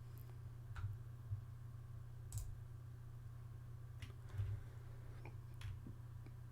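A few faint, sharp clicks, scattered irregularly, over a low steady hum.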